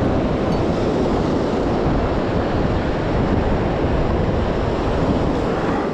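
Surf washing onto the beach, mixed with wind buffeting the microphone: a steady rushing noise.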